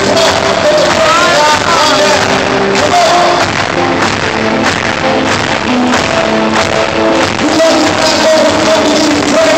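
Live worship band playing with singing, loud, in a large hall.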